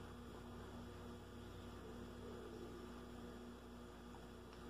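Faint, steady electrical mains hum over quiet room tone.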